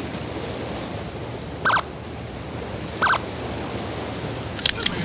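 Steady wash of small waves on a rocky shore, with two short high chirps in the middle and a few sharp clicks near the end.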